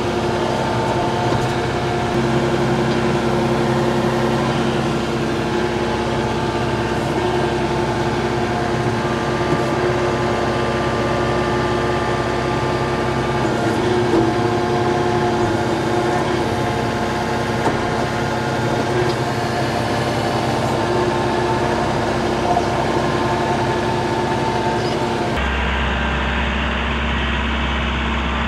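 John Deere 4066R compact tractor's diesel engine running steadily while the loader grapple is worked, with steady tones that come and go over the engine note. Near the end the sound turns lower and duller.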